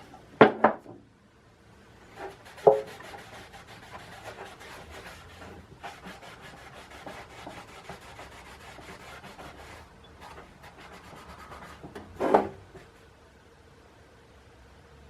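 Hand scrubbing of old hand-saw parts during cleanup: a rapid, dense rubbing from about two seconds in until about ten seconds. A few sharp knocks come near the start, and a louder knock about twelve seconds in.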